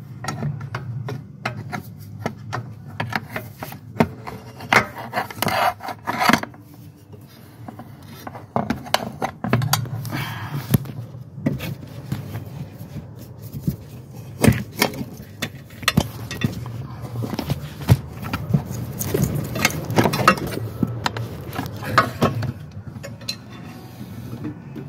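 Irregular clinks, knocks and scraping of hand tools and metal parts as an EGR cooler and its hoses are worked loose and pulled out of a diesel engine bay, over a low steady hum.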